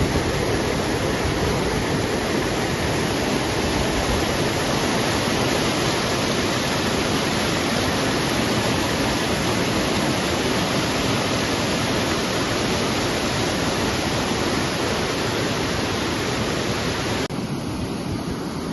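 Waterfall: a steady, loud rush of falling water. Near the end it cuts abruptly to a duller, softer rush.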